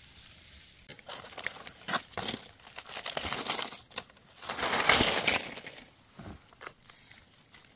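Rustling and crackling of dry leaf litter in uneven bursts, loudest about five seconds in, as the ground is searched for mushrooms.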